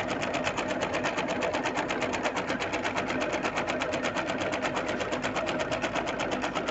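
Janome sewing machine running at a steady speed, a rapid, even run of needle strokes as it sews an appliqué stitch around the edge of a fabric flower.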